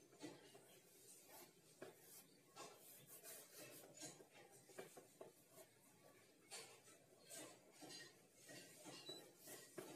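Chalk writing on a blackboard: faint, short, irregular scratching strokes.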